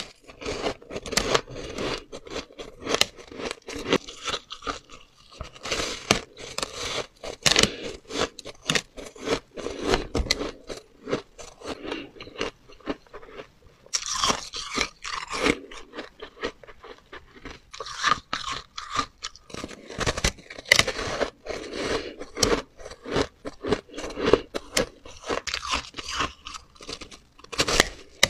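Soft shaved ice being bitten and chewed: a dense, irregular run of crunches as mouthfuls are bitten off the block and chewed.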